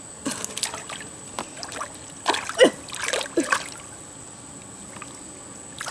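Hands splashing and sloshing in a shallow pool of muddy water while groping for fish, in a run of short, uneven splashes that thins out after about four seconds.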